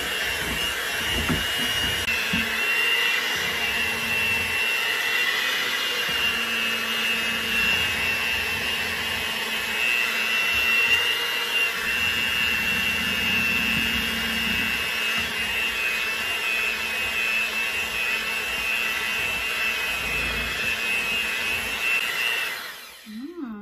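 Electric hand mixer running steadily, its beaters whirring through cake batter in a bowl, with a constant high-pitched whine. It switches off near the end.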